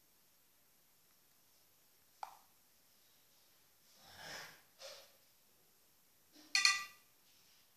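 Mostly quiet room tone with a few faint handling noises: a light tap about two seconds in and soft rustles around four seconds. Near the end comes a brief, brighter sound with a pitch to it, the loudest moment.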